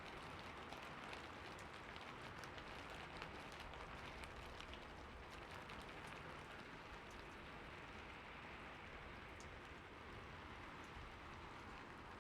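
Steady rain falling, with many small, sharp drop ticks over an even hiss.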